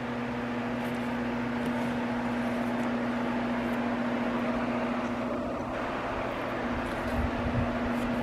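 Steady mechanical hum with one constant low tone, and a few low knocks near the end.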